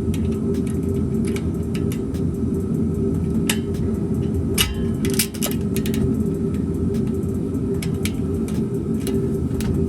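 A steady low mechanical hum throughout, with scattered light metallic clicks and knocks from exhaust header parts and tools being worked into place, a cluster of them about four and a half to five seconds in.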